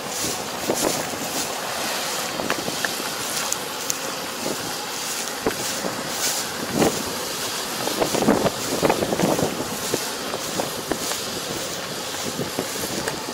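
Wind buffeting the microphone in gusts, with a vehicle engine running underneath.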